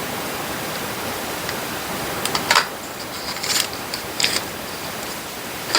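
Steady background hiss, with a few short rustles from packaging and small plastic pieces being handled: about two and a half seconds in, again at about three and a half and four and a quarter seconds, and once near the end.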